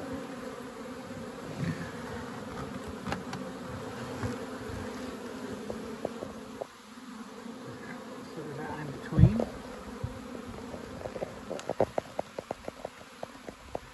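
Honey bees buzzing steadily in a swarm around an opened hive. About nine seconds in, a loud close buzz falls in pitch as it passes, and near the end there is a run of quick soft ticks.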